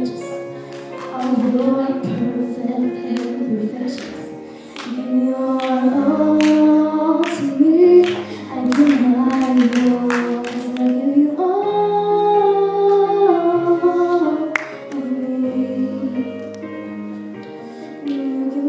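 A young woman singing a slow song solo into a handheld microphone, her voice gliding between held notes over an instrumental accompaniment of sustained chords.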